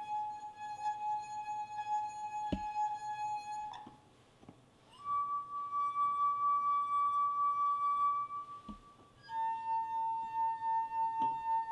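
Three wine glasses of different shapes and sizes made to sing one after another by a wet finger rubbed around each rim: a steady ringing tone, then a higher one from the second glass, then one a little lower than the first. Each tone's pitch is set by that glass's shape, size and structure. A brief click sounds during the first tone.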